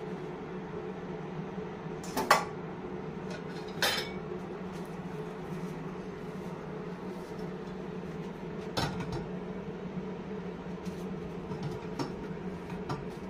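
Pots, glass pot lids and dishes being handled and set down while being dried by hand: a sharp clink about two seconds in and another about four seconds in, with lighter knocks later, over a steady low hum.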